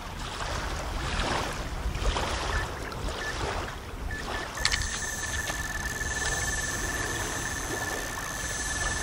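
Wind and small waves lapping at the shore. About two and a half seconds in, an electronic carp bite alarm gives a few short high beeps, then from about halfway it sounds a continuous high tone as its beeps run together: a run, a fish taking line.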